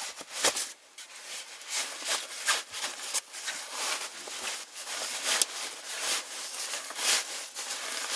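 Irregular clicks, taps and scrapes of cookware and food being handled while a meal is prepared, several sharp ones standing out.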